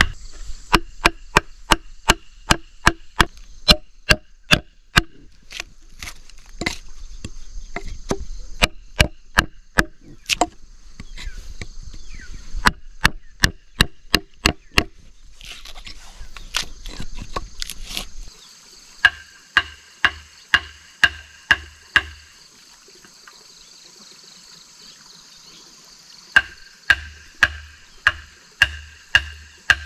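A metal blade chopping into a wooden log to hollow it out into a trough. Sharp chops come about two a second, in runs separated by pauses of a few seconds, over a steady high hiss.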